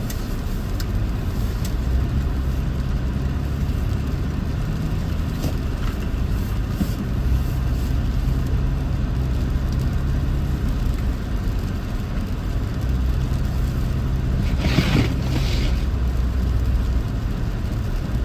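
Toyota 4Runner driving through snow, its engine and tyres making a steady low drone that swells and eases slightly. About three seconds before the end there is a brief hiss.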